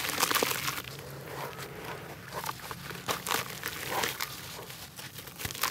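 Grainy red dirt block crumbling between wet hands: irregular gritty crunches and crackles as clumps break off and drop into muddy water.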